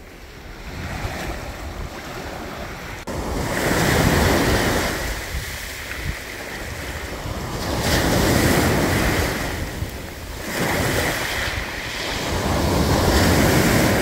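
Sea waves breaking and washing up the shore in three surges, roughly every four to five seconds, with wind buffeting the microphone.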